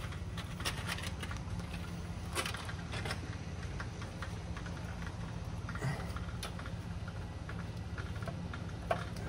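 Scattered clicks and metal clinks of hand tools and parts being handled during engine work, over a steady low hum.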